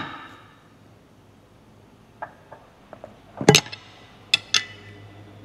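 Metal tools and parts clinking against metal: a sharp ringing clink at the start, a few light ticks between two and three seconds in, a louder clank about three and a half seconds in, then two more ringing clinks.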